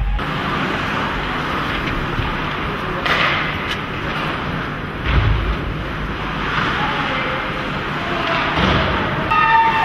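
Ice rink noise during ice hockey play: a steady hiss of arena sound with three dull thuds about three seconds in, about five seconds in and near the end, typical of the puck or players hitting the boards.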